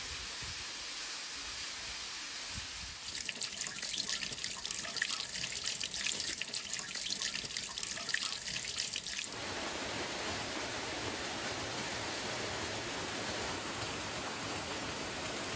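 Flowing water in a mountain stream: an even rushing, with close splashing and trickling from about three seconds in to about nine seconds in, then a steady, even rush of falling water.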